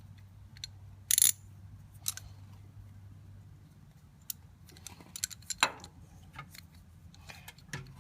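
Scattered metallic clicks and clinks of hand tools and bolts while a starter is being bolted up under a truck, with a sharper clank about a second in and another near six seconds.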